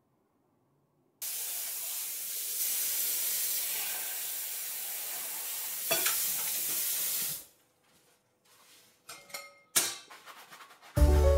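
Kitchen tap running into a stainless steel sink, a steady splashing hiss that starts suddenly about a second in and is shut off about six seconds later. A few clinks and knocks of dishes being handled at the sink follow.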